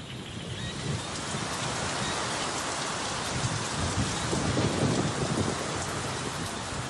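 Heavy rain pouring down in a thunderstorm, its hiss swelling over the first second and then holding steady. A low rumble of thunder runs underneath, strongest in the middle.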